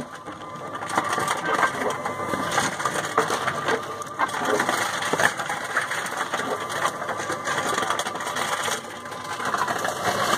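Wincor Nixdorf ReVendo 7000 reverse vending machine running: its rollers spin a plastic deposit bottle in the intake for scanning, with motor noise and irregular clattering of plastic throughout.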